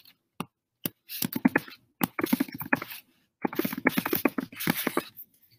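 Typing on a computer keyboard: a couple of single keystrokes, then three quick runs of key clicks with short pauses between them.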